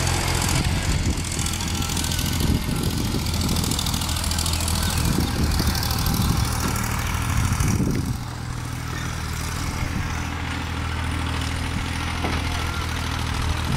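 An engine running steadily with a low droning hum, easing slightly in level about eight seconds in.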